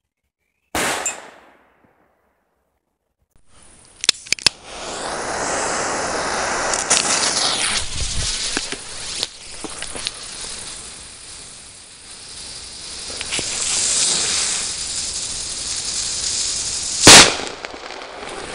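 ACAB polenböller firecracker (1.9 g net explosive content per piece): its fuse hisses and sputters with a few sharp crackles for about thirteen seconds, then one loud bang near the end. About a second in there is also a brief loud burst that dies away within a second.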